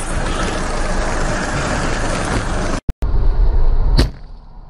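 Motorcycle ride filmed on a helmet camera: steady wind and engine noise, which stops abruptly just before three seconds in. Then the rumble of a car driving with its windscreen shattered, with one sharp knock about four seconds in, after which it goes quieter.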